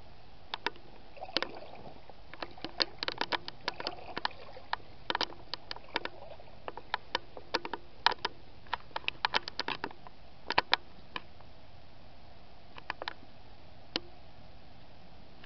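Brook water splashing and sloshing around tall riding boots as someone wades: many irregular short splashes, thickest in the middle and thinning out near the end, over a steady hiss.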